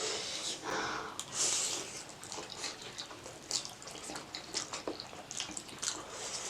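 Noodles being slurped and chewed with wet mouth sounds: a couple of longer slurps in the first two seconds, then many short wet clicks of chewing.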